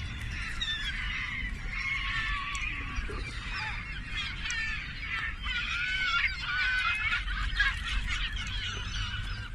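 A flock of water birds, mostly gulls and geese, calling over one another in many overlapping squawks and honks as they crowd in for thrown bread. The calling grows busiest around the middle, over a low rumble.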